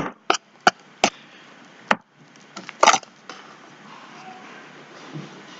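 A spoon knocking and clicking against a cup while slime is stirred: several sharp knocks at uneven intervals, the loudest about three seconds in.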